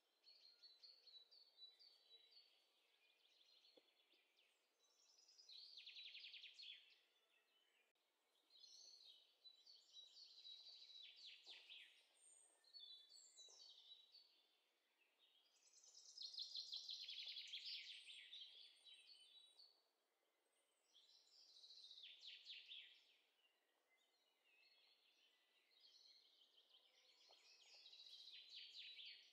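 Faint songbirds singing, with bursts of rapid trilling chirps coming every few seconds.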